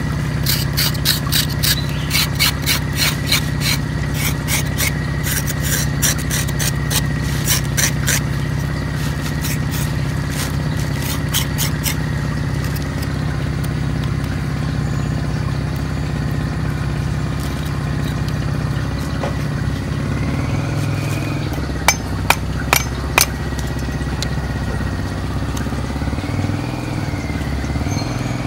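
Knife blade scraping the singed skin of a pork leg in quick rasping strokes, about three a second for the first twelve seconds, then a few more sharp scrapes past twenty seconds. Under it runs a steady low engine-like hum.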